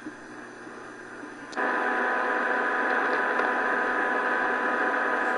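Medium wave static hissing from a Prunus J-15 portable radio's speaker while it is tuned for a faint daytime AM station. It is faint at first, then jumps suddenly louder about a second and a half in and holds steady, with thin steady tones running through the hiss.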